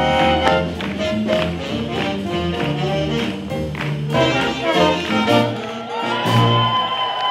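Live swing jazz band playing with a walking bass line, drums and horns, then closing on a long held final chord about six seconds in.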